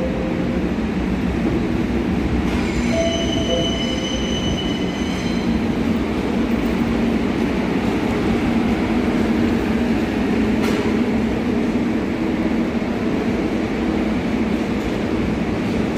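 New York City Subway train rolling into the station with a continuous rumble. About two and a half seconds in, its wheels squeal for roughly three seconds in a high steady tone. A descending two-note chime sounds at the very start and again about three seconds in, and there is a single sharp click around ten seconds.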